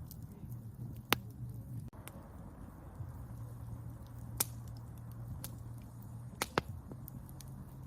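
Wood campfire burning with a steady low rumble and sharp crackling pops: one about a second in, one near the middle, and two close together near the end.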